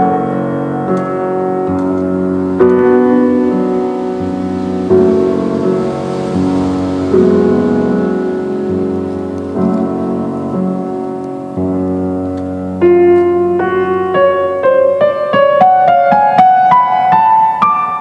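Background instrumental music: slow sustained chords that change every two to three seconds, then a quicker line of single notes higher up in the last few seconds.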